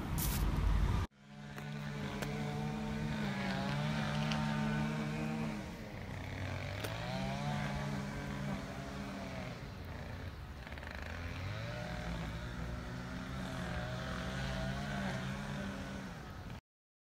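An engine running with a steady pitched hum whose pitch rises and falls slowly several times, as with changes of speed, and then cuts off suddenly near the end. Before it, about a second of loud rumbling noise stops abruptly.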